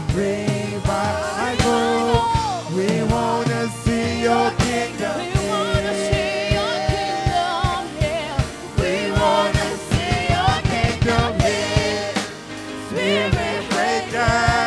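Live gospel worship music: a band with drum kit playing under lead and backing singers, the voices holding long, sliding notes over steady drum beats.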